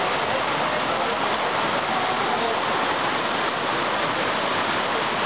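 Rocky mountain stream rushing over boulders and small cascades: a steady, even rush of water.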